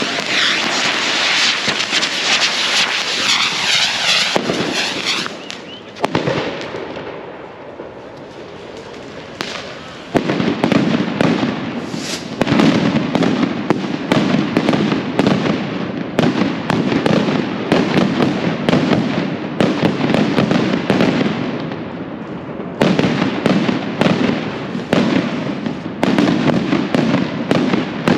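Firecrackers going off in a dense, rapid barrage of bangs and crackling. The crackling thins out and quietens for a few seconds with a single bang. About ten seconds in, a continuous volley of bangs sets off again and keeps going.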